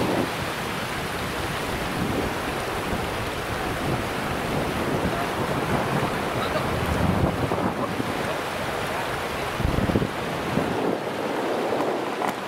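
Steady rushing noise with wind buffeting the microphone in low gusts, strongest about seven and ten seconds in.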